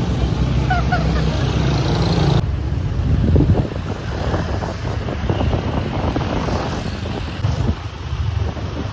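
Vehicle engine and road noise heard from the open cargo bed of a moving pickup, with wind gusting on the microphone. After a cut about two and a half seconds in, the wind buffeting takes over from the engine rumble.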